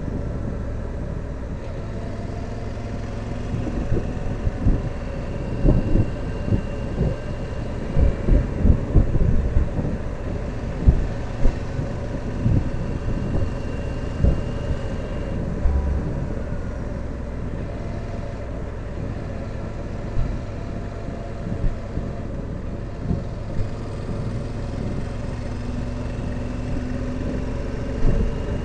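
Motorcycle engine running steadily while being ridden along a winding road, with irregular low thumps through the middle stretch.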